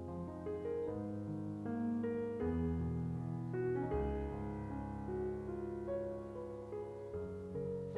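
Background piano music, a gentle melody of held notes changing about every half second.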